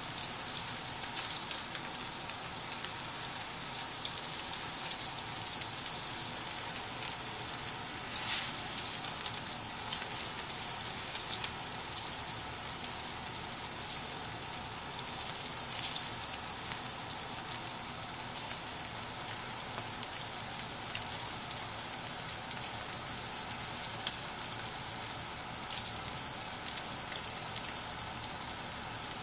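Bone-in rib eye steak searing in butter and olive oil in a smoking-hot skillet: a steady sizzle with a few sharper crackles.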